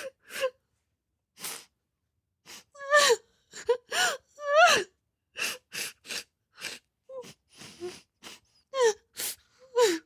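A person crying: short sobbing cries that fall in pitch, broken by sharp gasping breaths, each burst separated by silence.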